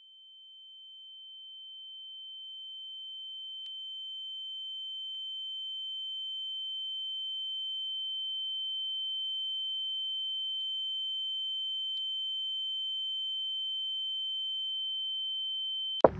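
A single high-pitched steady electronic tone, like a pure sine tone, fading in slowly over the first several seconds and then holding level. It cuts off suddenly near the end as loud music with guitar comes in.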